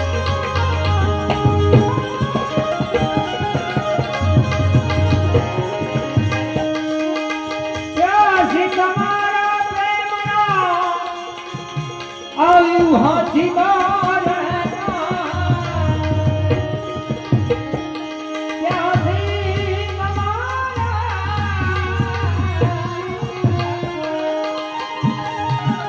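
Indian devotional folk music with a steady percussion beat and jingling hand cymbals. Melodic phrases that glide up and down come in three times.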